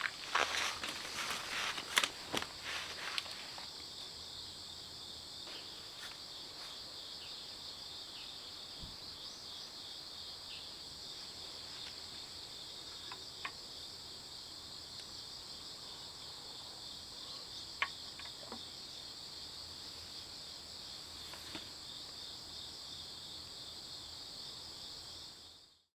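Crickets and other insects chirping in a steady, dense high-pitched chorus. A handful of sharp knocks or footsteps come in the first three seconds, with a few isolated clicks later. The chorus fades out just before the end.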